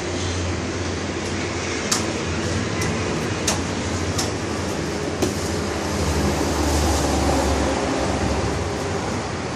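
Metal spoon clinking against a plate five times in the first half, over a steady low background rumble that swells a little past the middle.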